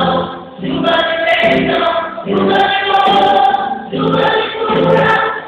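Portuguese-language gospel song with choir-like sung vocals over backing music, in sung phrases with short breaths between them.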